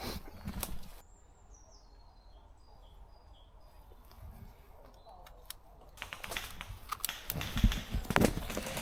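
A songbird sings a short run of high notes that step downward in pitch during a lull. From about six seconds in, sharp clicks and snaps of airsoft guns firing start, with several heavier thumps near the end.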